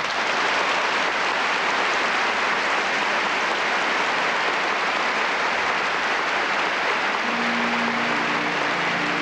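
Audience applauding steadily. About seven seconds in, the orchestra starts playing softly again under the applause.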